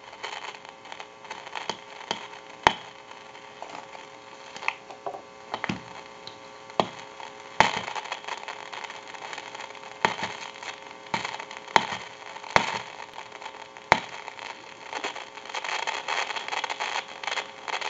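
Crackling, hissing static with irregular sharp pops from a Northern Electric rotary telephone's F1 carbon granule transmitter, heard through the handset receiver on an amplified pickup over a faint steady amplifier hum. The pops get thicker and louder in the second half. The transmitter is too noisy and has to be replaced.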